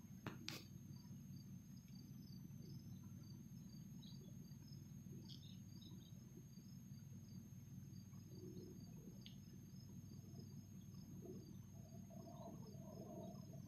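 Near silence: a faint steady low hum, with insects chirping in a fast, even repeating pattern. A couple of sharp clicks come right at the start.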